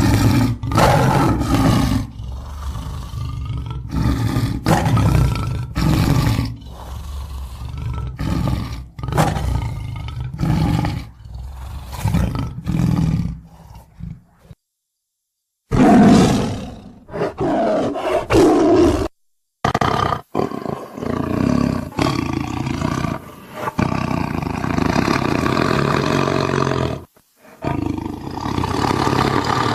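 Tiger roaring over and over: short low calls in quick succession, broken by a few brief silences.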